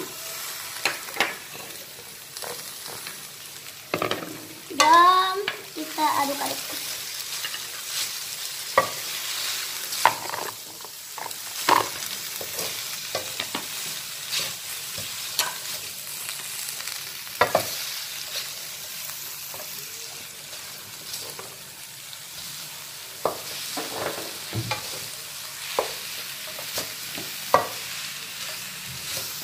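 Fried noodles and greens stir-fried in a wok over a gas flame: a steady sizzle with frequent clicks and scrapes of a wooden spatula against the wok. A brief wavering pitched sound rises over it about five seconds in.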